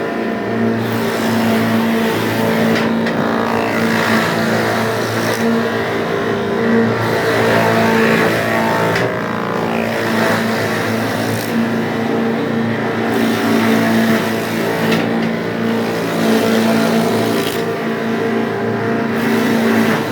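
Wood sawdust-making machine (wood crusher) running at speed on its test run: a loud, steady mechanical drone at a constant pitch, with a high hiss that swells and fades every few seconds.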